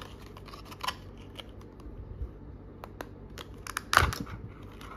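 Clear plastic blister tray being handled and flexed in the hands: scattered small clicks and crinkles, with a louder crackle about four seconds in.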